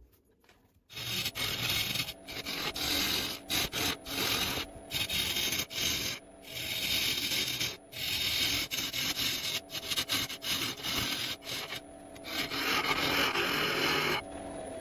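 Turning tool cutting into a segmented wood blank spinning on a wood lathe: a rough scraping hiss of wood being shaved, starting about a second in and coming in stretches broken by many brief gaps.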